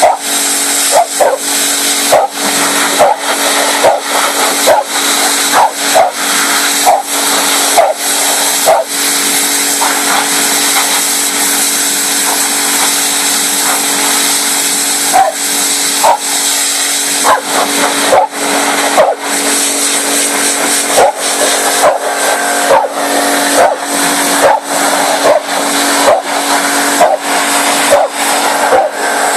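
A pressure washer running with a steady motor hum and spray hiss, while a dog barks at it over and over, about one bark a second.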